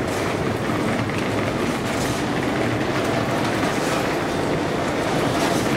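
Escalator running: a steady rumble with a continuous rattle of its moving steps and step chain.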